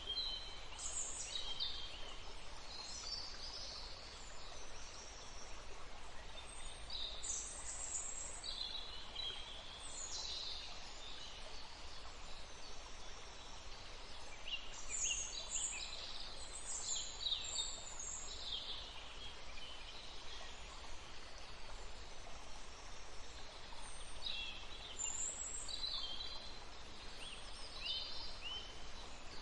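Small songbirds chirping and trilling in forest ambience: short, high-pitched phrases coming in clusters with brief lulls, over a steady faint background hiss.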